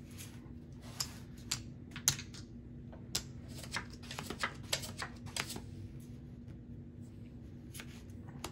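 Playing cards and clay casino chips handled on a felt blackjack table: a run of sharp clicks and card snaps as the cards are scooped up and the chips collected, quieter near the end as new cards are slid out.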